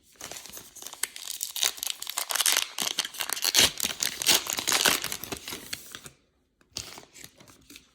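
Plastic card wrapper crinkling and tearing as it is opened and handled, a dense crackling for about six seconds, then a few light clicks and rustles near the end.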